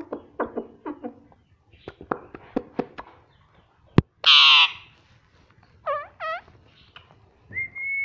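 Indian ringneck parakeet making a run of dry clicking sounds, then a loud, harsh screech about four seconds in, followed by two short curved calls and a held whistle near the end.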